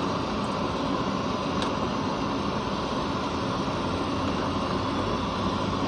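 Gas stove burner running with a steady, noisy roar under a pot of soup.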